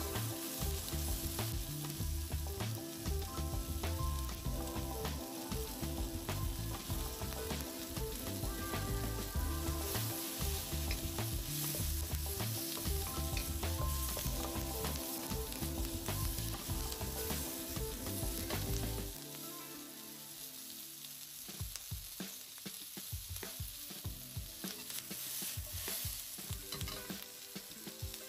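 Vegetables (bell peppers, shallots and chilies) sizzling steadily in a hot wok, with the scrape and knock of a wooden spatula as they are stirred now and then. This is a high-heat stir-fry, the food left to sear between stirs to build wok hei.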